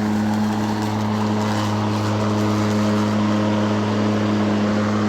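Mowrator 2WD remote-control lawnmower running with its cutting blade spinning as it drives up a slope: a steady, even hum.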